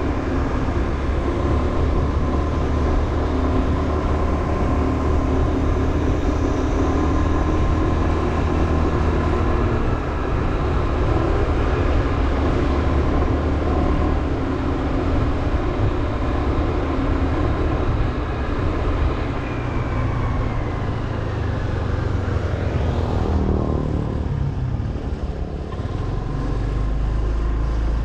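Motorbike engine running steadily while riding, over wind and road noise; about two-thirds of the way through, a pitch falls away over several seconds.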